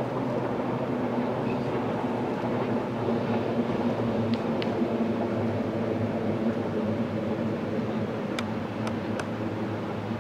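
Rhaetian Railway narrow-gauge electric train running steadily along the track, a continuous rumble of wheels and traction equipment with a low hum. A few sharp clicks come near the end.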